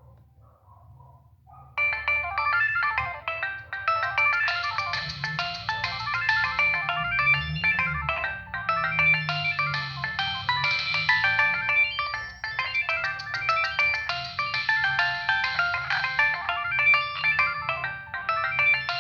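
Polyphonic ringtone from a Nokia 6585i playing a fast melody of short synthesised notes. It starts suddenly about two seconds in and keeps going.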